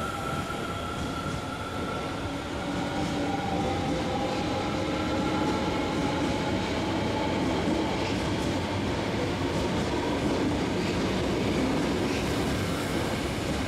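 Electric commuter train moving through an underground station platform: a steady rumble of wheels and traction motors with a faint drawn-out whine.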